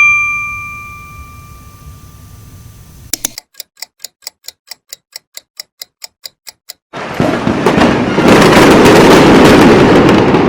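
A sequence of stock sound effects: a bell-like ding ringing out and fading, then a run of sharp, evenly spaced ticks at about four a second, then a loud, dense noisy rush that starts abruptly about seven seconds in and carries on.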